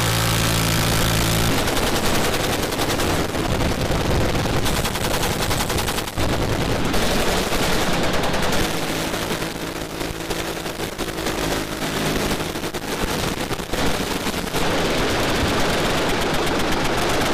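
M134 six-barrel rotary minigun and other machine guns firing in long sustained bursts, a dense continuous rattle of shots. A boat engine's steady hum sits under the gunfire and is clearest about a second in and again in the middle.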